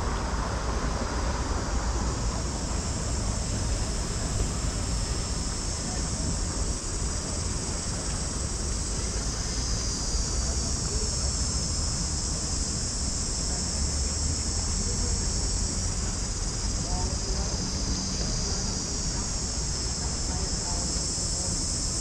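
A steady, high-pitched chorus of insects in the trees, with a low rumble of wind on the microphone underneath.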